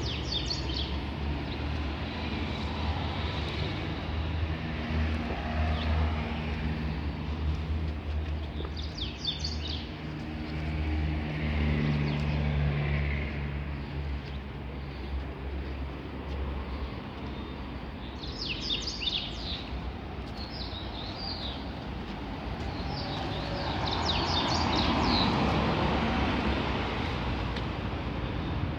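Outdoor ambience: a steady low engine hum, like a vehicle idling or traffic, that fades out a little past halfway, with short bird chirps several times and a broader swell of noise near the end.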